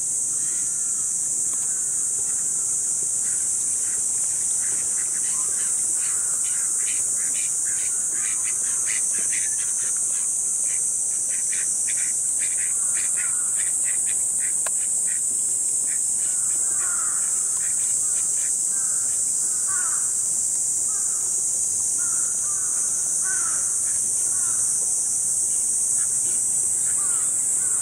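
Steady, high-pitched summer chorus of cicadas, the loudest sound throughout. Over it come rapid repeated chirps in the first half and scattered short, lower calls in the second half.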